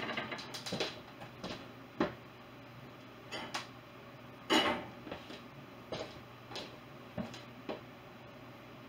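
Dishes and utensils being handled while loading or unloading a dishwasher: about a dozen irregular light clinks and knocks, the loudest about halfway through.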